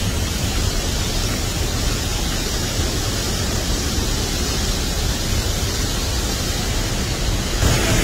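Pailón del Diablo waterfall, heard up close: a steady, dense rush of heavy falling water, its low rumble growing a little louder near the end.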